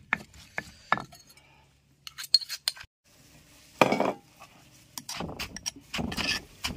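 Stone mortar and pestle in use for som tam: a few sharp pestle strikes pounding the paste in the first second, then after a pause a brief rustle about four seconds in, and near the end a metal spoon clinking and scraping against the stone as the shredded strips are pounded and tossed.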